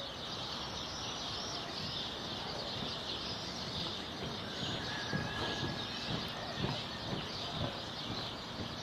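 A dense chorus of small birds chirping and twittering over a low outdoor background, with a few soft low thumps in the second half.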